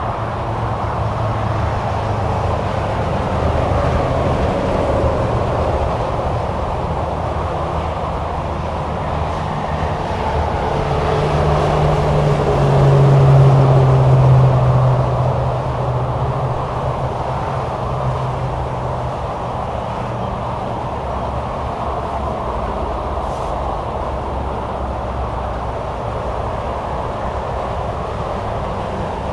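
Steady highway traffic: continuous tyre and engine noise of passing vehicles. About halfway through, one louder vehicle goes by and its low engine drone stands out.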